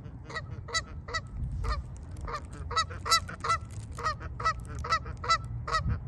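Canada geese honking: a run of short, repeated honks, coming faster after about two seconds.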